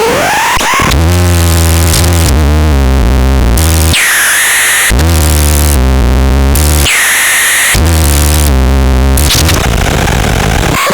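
Harsh electronic noise from a noise-making device being demonstrated. A heavy, distorted low drone cuts in and out in blocks of one to two seconds, alternating with bands of hiss and high tones that slide downward, after a rising sweep at the start.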